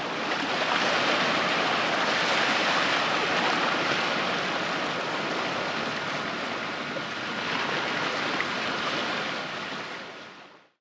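Waves washing against the shore: a steady rushing of water that fades out near the end.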